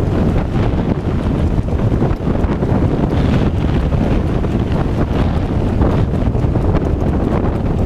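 Steady wind buffeting on a GoPro Hero 3's microphone while a Honda CBF500 motorcycle is ridden at road speed: a dense low rumble with no clear engine note.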